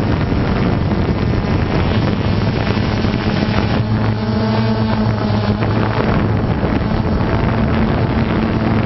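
Camera drone's propellers humming steadily, a low hum under a rush of wind noise on the microphone; the hum fades for a few seconds in the second half and comes back near the end.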